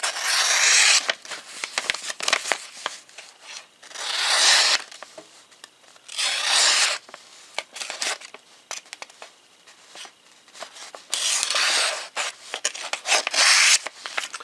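Buck 284 Bantam pocket knife's 420HC steel blade slicing through a sheet of paper: five separate swishing cuts of about a second each, with light paper rustling and handling clicks between them.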